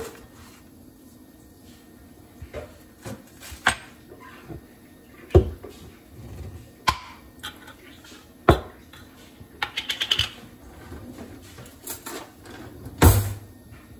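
Scattered clicks, taps and knocks of kitchen handling on a countertop as a glass pickle jar is picked up and opened and utensils are moved, with a quick run of clicks about ten seconds in and a loud knock near the end.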